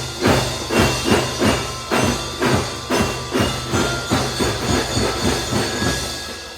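Children's drum band playing: drums striking a steady marching beat, about three strokes a second, under held melody notes. The drumming and the low notes stop shortly before the end and the sound drops away.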